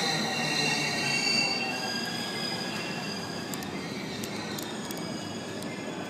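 Train wheels squealing on the rails, a chord of several high steady pitches that fade over the first two seconds and leave a lower rumbling noise. A few faint clicks come in the middle.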